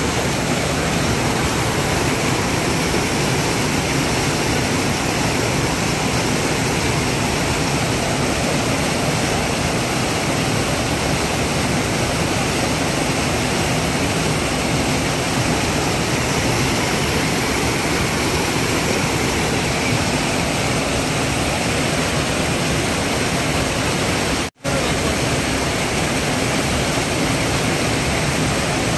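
Small cascade of white water rushing steadily down a rocky chute: a dense, even roar of falling and tumbling water. It cuts out for an instant near the end, then carries on unchanged.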